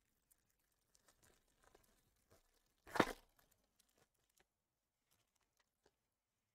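A trading-card pack's wrapper torn open in one short rip about three seconds in, among faint clicks of cards being handled.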